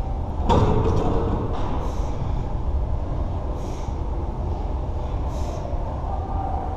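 A plate-loaded leg press being worked through a set: a metallic clank of the sled and plates about half a second in, then soft hissing puffs in time with the reps, roughly every one and a half to two seconds. A steady low rumble of gym ambience runs underneath.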